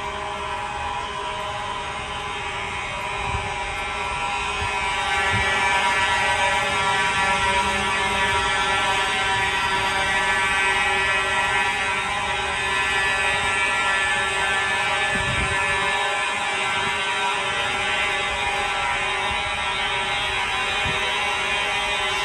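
Fire alarm horns sounding continuously: one steady buzzing tone with no pauses, growing louder about five seconds in.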